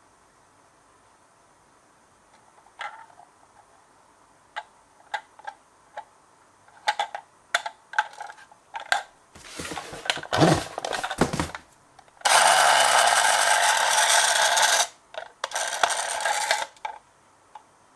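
Scattered light clicks, then clattering as a die-cast toy minicar rolls along a track. About twelve seconds in it runs fast for roughly three seconds with a loud steady rattling rush, and a second shorter run follows.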